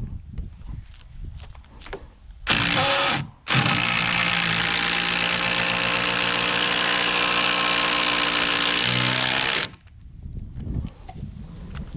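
Power drill driving a long construction screw into a timber log: a short burst, then about six seconds of steady running that drops in pitch just before it stops.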